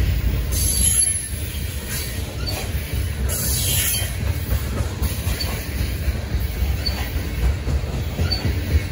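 Loaded coal hopper cars rolling past on steel rails: a steady, loud low rumble of wheels on track, with two brief high squeals from the wheels, about half a second in and again around three and a half seconds in.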